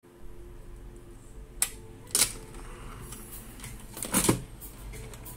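Handling noise: sharp clicks and knocks, one about a second and a half in, another half a second later, and a louder double knock around four seconds in, over a low steady hum.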